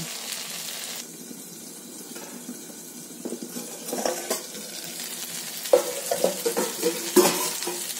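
Brinjal pieces frying in a covered kadai, a soft steady sizzle, with a couple of sharp metal clinks from the steel lid about four seconds in.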